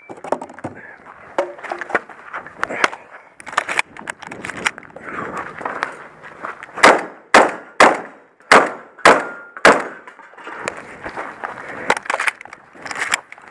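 Shotgun fire during a timed stage: scattered shots and lighter knocks and clatter at first, then a run of six loud shots about half a second apart in the middle, followed by more scattered shots and knocks.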